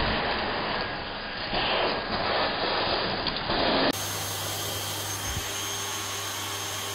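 Vacuum cleaner running as it sucks up dust from a wooden floor, its noise swelling and easing as the nozzle is moved about. About four seconds in the sound changes abruptly to a steadier run with a thin, high, steady whine.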